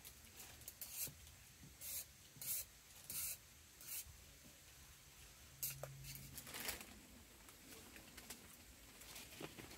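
A series of short scrapes and light clinks from chopsticks working stew out of a metal camping pot into a stainless steel bowl. The strokes come roughly every half second to a second, with a gap and then two more.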